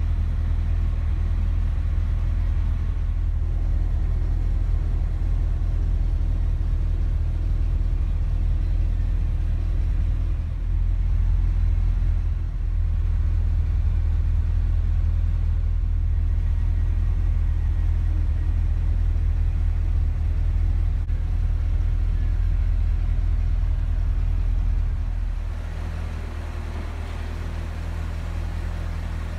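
Corvette C6 Grand Sport's 6.2-litre LS3 V8 idling steadily, a deep even rumble heard from inside the cabin. Near the end the sound drops to a quieter, steadier hum.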